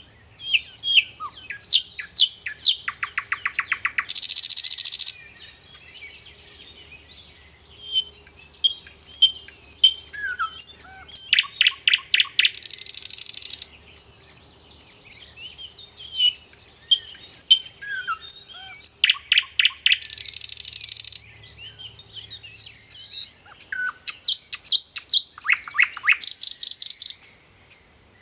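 A bird singing: phrases of quick chirps and rapid notes, each ending in a dry buzzing trill about a second long, repeated three times about eight seconds apart.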